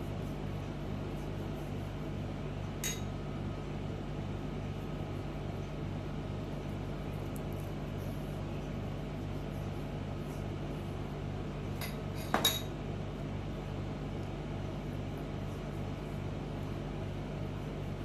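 Steady low machine hum with a slow pulse of about two or three throbs a second. A light clink comes about three seconds in, and a louder double clink about twelve seconds in.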